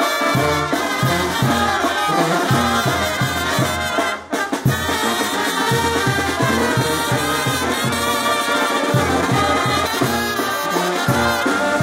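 Brass band playing, trumpets and trombones over low bass notes pulsing on a steady beat. The music briefly cuts out about four seconds in, then resumes.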